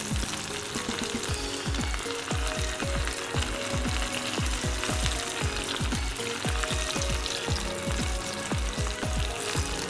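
Hot oil sizzling and bubbling steadily as pieces of pressed boiled potato deep-fry in a pan. A background music track with a regular low beat plays underneath.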